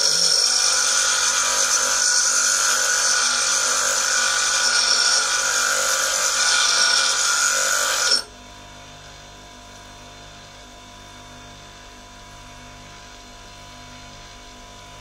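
A parting-off tool pressed against a spinning bench grinder wheel: a loud, steady grinding hiss that stops suddenly about eight seconds in as the tool is lifted off. The grinder motor keeps running with a quiet steady hum.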